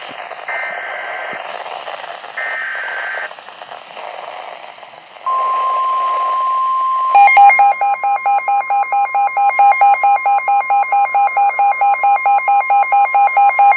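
Emergency Alert System weather alert over a radio hiss. It opens with two short bursts of buzzy two-pitch SAME header data, then a steady NOAA Weather Radio 1050 Hz warning tone. About seven seconds in, a rapid pulsing alarm beep of about four a second joins the tone and runs on with it.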